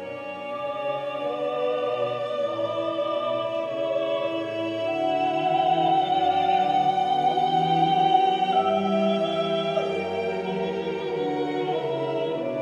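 Classical vocal music: an operatic voice singing long held notes over orchestral accompaniment, growing louder toward the middle.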